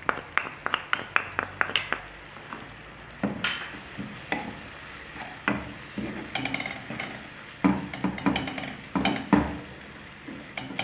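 A spatula taps quickly against the rim of a small bowl to knock ground spices out, then stirs and scrapes through onion, pepper and tomato frying in a speckled non-stick pan, over a faint sizzle.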